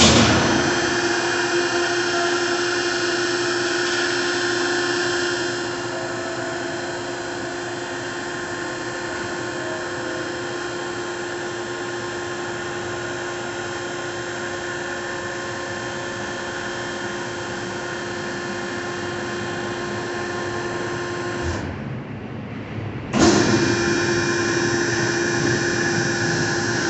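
Fox vertical hydraulic cardboard baler's electric motor and hydraulic pump running with a steady whine. It eases slightly about six seconds in, stops about 21 seconds in, and starts again about two seconds later.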